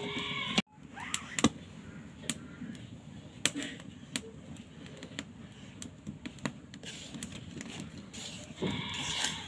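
A short bleating call with a wavering pitch at the very start and again, about a second long, near the end. Between the calls come scattered light clicks and soft rubbing as hands mix dry rice flour in a bowl.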